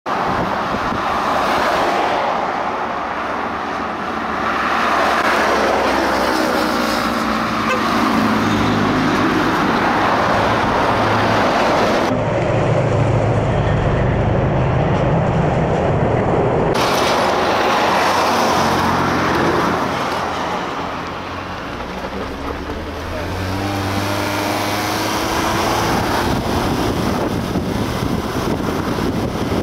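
Car driving along a highway: steady road and wind noise, with engine sounds swelling and fading several times as the car and the traffic around it speed up and pass.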